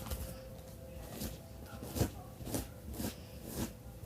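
Comb drawn through a doll's knotted hair, a series of short scratchy strokes about every half second.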